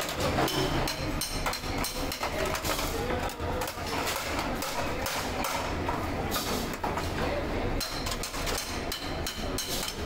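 Hand hammer striking a sheet-metal motorcycle mudguard on a small anvil, many quick metallic blows in a row as the mudguard's curved edge is shaped.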